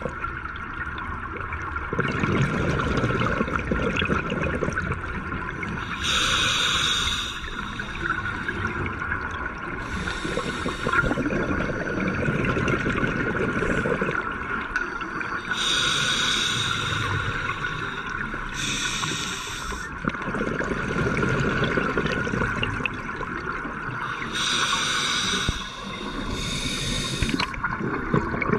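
Scuba diver breathing underwater through a regulator: about six hissing inhalations, each followed by a low rumble of exhaled bubbles, over a steady high hum.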